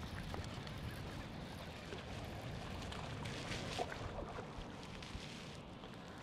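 Wind buffeting the microphone over choppy water, with a hooked bass splashing at the surface about three and a half seconds in.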